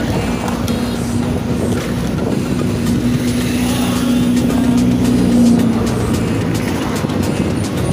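Street traffic: a car's engine hum growing louder and then ending about five and a half seconds in as the car passes close, over steady road rumble and wind on the microphone.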